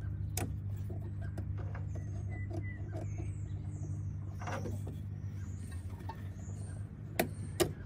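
Light clicks and taps of hand tools and metal fittings being worked on in a car's engine bay, with two sharper metallic clicks near the end, over a steady low hum.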